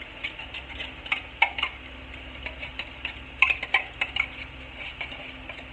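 Spoon scraping and clinking inside a tin can while scooping out thick condensed cream of chicken soup: a string of short scrapes, with a few sharper clinks about a second and a half in and again around three and a half seconds.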